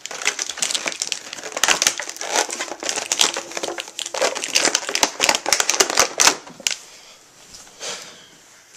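Packaging crinkling and rustling as it is handled, a dense run of crackles that dies down about seven seconds in, with one short rustle near the end.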